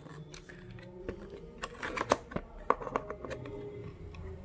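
Hand can opener's metal tip prying and scraping at a plastic packaging tray to break its seal, giving irregular clicks and plastic crackling, with two sharper clicks near the middle.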